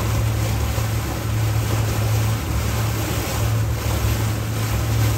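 Motor of a lake tour boat running at a steady low drone, under a steady rush of wind and water.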